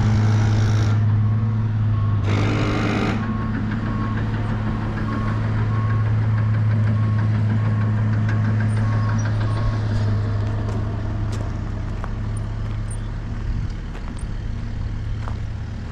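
Diesel dump truck engine running steadily, with a reversing alarm beeping about once a second for several seconds. A short burst of noise comes about two seconds in.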